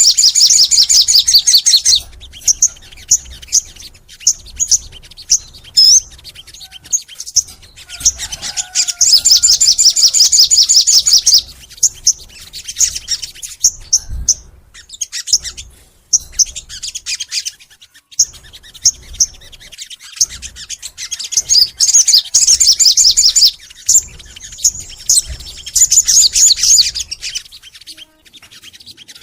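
Sogon songbird singing: long, fast, high-pitched chattering trills lasting two to three seconds, three or four times, broken by short, sharp separate chirps.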